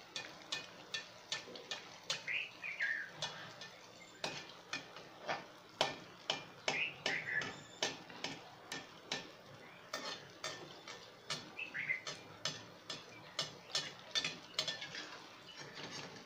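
Perforated metal slotted spoon working hot ghee over anarse frying in an aluminium kadhai: irregular clicks and taps of metal on the pan, about two or three a second. A bird gives a few falling chirps.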